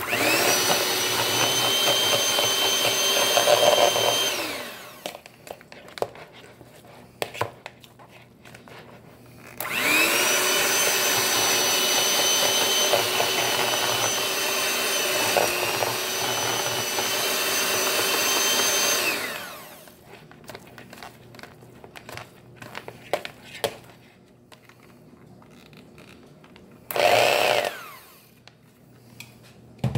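Electric hand mixer shredding cooked chicken in a bowl. Its motor whines at a steady pitch for about four seconds, stops, spins up again for about ten seconds, then gives one brief burst near the end. Light clicks and knocks fill the pauses.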